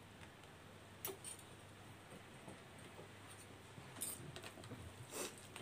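Forks clicking and scraping against bowls of instant noodles while eating: a faint click about a second in, then a few more around four to five seconds in.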